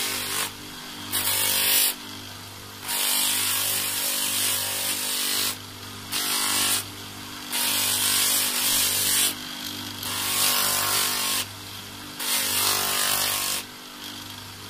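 Brass fitting sanded on a fine 600-grit sanding disc spun by a bench electric motor: the motor hums steadily, and a loud hiss of abrasive on metal comes each time the brass is pressed to the disc, in about seven passes of one to two seconds each.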